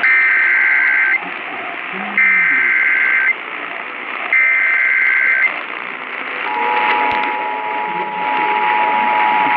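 Emergency Alert System broadcast received over radio, with static hiss: three one-second bursts of shrill two-pitch digital data tones (the SAME header) about a second apart. About two-thirds of the way in, the steady two-tone attention signal starts and holds. This is the start of a new tornado warning alert.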